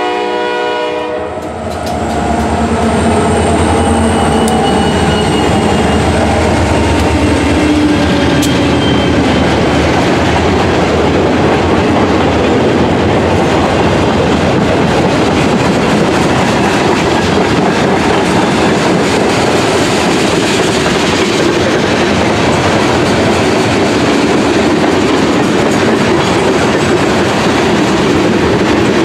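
Diesel locomotive horn sounding a chord that cuts off about a second in. Then the trailing diesel locomotives of a freight train pass with a low rumble, followed by a long string of boxcars and tank cars rolling by with steady wheel clatter.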